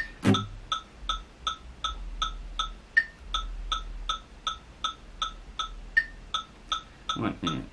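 Metronome ticking steadily at about 160 beats a minute (just under three clicks a second), with a higher-pitched accent click every eighth tick, during guitar practice. An acoustic guitar strum rings just after the start, and strumming picks up again near the end.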